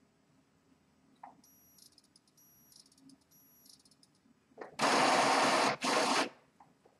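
Epson WorkForce 3540 inkjet printer's internal mechanism working at the end of an ink-charging cycle after a cartridge replacement. First comes a faint high-pitched motor whine in three short runs. Then, about 5 seconds in, a loud rushing whir sounds in two bursts.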